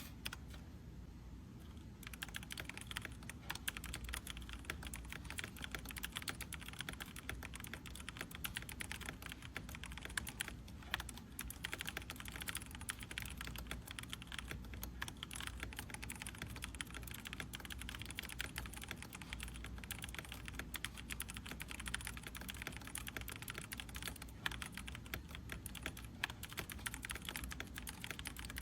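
Fast typing on a computer keyboard: a dense, continuous run of key clicks that starts about two seconds in, after a single click near the start.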